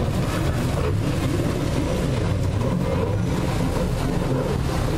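Racing jet ski engine running hard, a loud, steady drone with no breaks.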